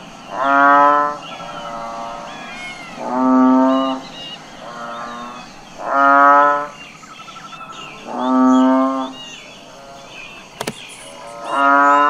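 Cattle mooing: five loud, drawn-out calls of about a second each, coming roughly every two and a half seconds. The last one is cut off at the end. Faint high chirping sounds in the background.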